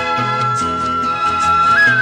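Instrumental music: a high melody line holding one long note over a steady, repeating bass beat.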